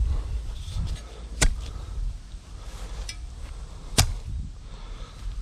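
Two sharp snaps or knocks about two and a half seconds apart, over a steady low rumble of wind on the microphone.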